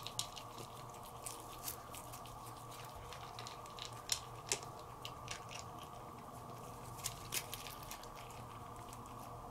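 Young Siamese cat eating wet food from a paper plate: irregular wet smacking and chewing clicks, the sharpest about four and four and a half seconds in, over a steady low hum.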